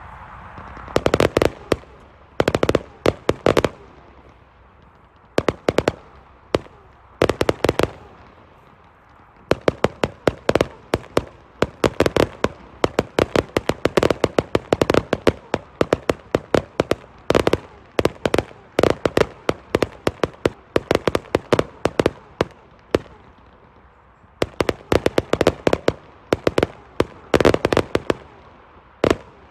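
Display-grade 1.3G fireworks going off in volleys of rapid, sharp cracks and bangs, with a few brief lulls between the clusters.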